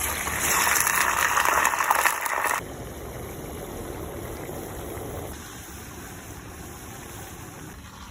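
Frozen French fries sizzling and crackling in hot oil in an outdoor cooker. The sizzle is loud and dense for about two and a half seconds, then drops abruptly to a quieter, steady sizzle that fades further about five seconds in.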